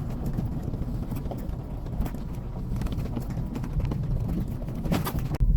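A truck crawling slowly over a rocky trail: its tyres crunch on stone and loose rocks click and knock under them over a low engine rumble.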